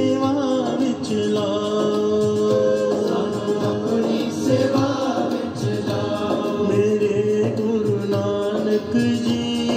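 Sikh devotional singing (kirtan): a man leads a slow sung line to the Guru and a gathering sings along, with held notes and steady musical accompaniment.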